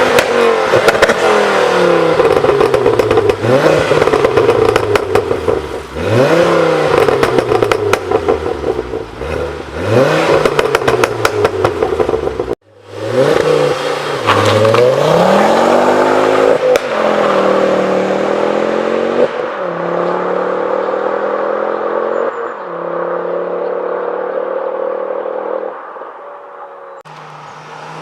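Ford Focus ST with a decat Scorpion exhaust being revved again and again, each rev rising and falling, with crackles and pops on the overrun. After a sudden cut about halfway, one more rev, then the engine settles to a steady note that slowly drops in pitch and goes quieter near the end.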